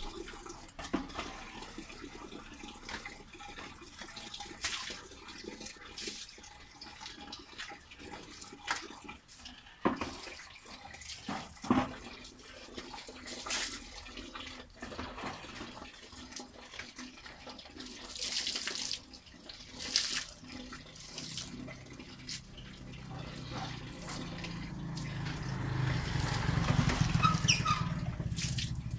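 Water splashing onto concrete as it is poured from a plastic dipper and scooped from a bucket, with scattered sharp splashes. A low rumble builds over the last few seconds and is the loudest sound near the end.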